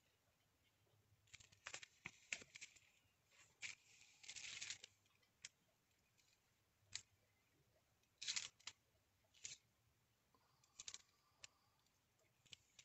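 Faint, intermittent scratchy strokes of a water brush on watercolour paper, with rustling as the card is slid and turned on the plastic work sheet, and a few short clicks.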